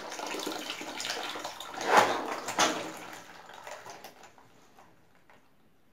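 Water draining out of a disconnected panel radiator, running and splashing into a plastic basin on the floor, with two louder surges about two seconds in. The flow then tapers off to a few faint drips.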